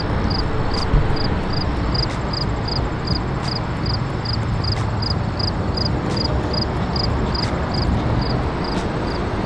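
Steady outdoor roadside noise, a low rumble with hiss, under a regular high-pitched chirping at about two and a half chirps a second that stops near the end.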